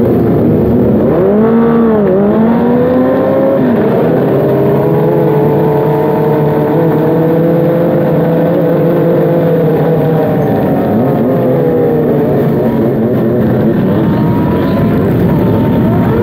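Kawasaki ZX-25R sport bike with a racing exhaust running under way, its engine note rising and falling with the throttle. There is a quick dip in pitch about two seconds in, a steady held note through the middle, then it eases off.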